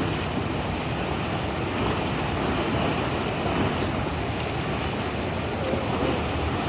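Swollen, flooded Nyamwamba River rushing: a steady, even noise of fast-moving water.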